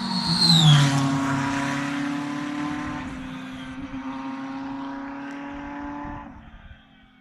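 Race car engine passing close by: a loud rev that drops in pitch about a second in, then the engine running steadily at low speed before fading away near the end.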